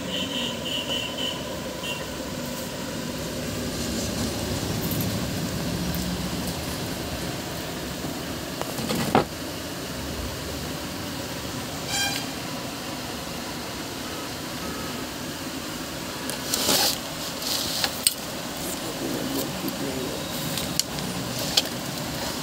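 Handling noise from an old valve radio's cabinet and chassis being moved about by hand: scattered knocks and clicks, a sharp knock about nine seconds in and a cluster of them near the end, over a steady low background rumble.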